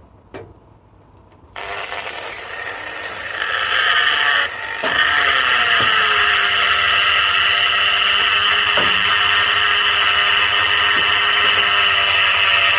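A power tool is switched on with a click and spins up about a second and a half in, then runs steadily with a high whine, sagging briefly about a third of the way through as it takes load.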